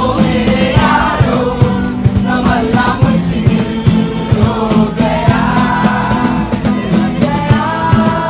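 Several young men singing together to strummed acoustic guitars, with a steady strumming beat under the voices.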